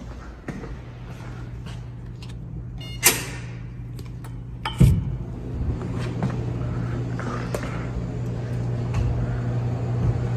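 A shop's glass door opening, with a sharp click and rattle about three seconds in and a heavy thud a little before five seconds. Under it, a steady low hum of the store's refrigerated drink coolers and freezer.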